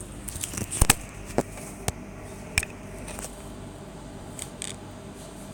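A handful of sharp clicks and taps over a faint steady hum, the loudest pair about a second in.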